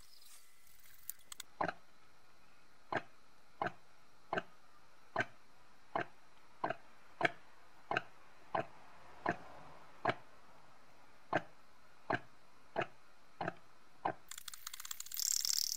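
Tilley paraffin pressure lamp: a steady series of sharp clicks, about one every 0.7 s, then a burst of hissing near the end as the mantle lights.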